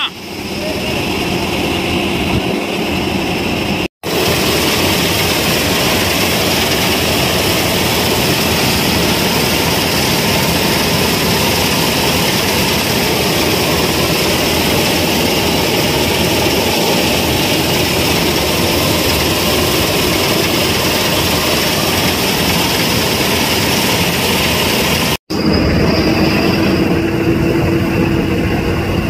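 A four-wheel-drive combine harvester running steadily while harvesting rice paddy: its engine and threshing machinery make a continuous loud drone. The sound breaks off for an instant twice, and a steady hum joins in near the end.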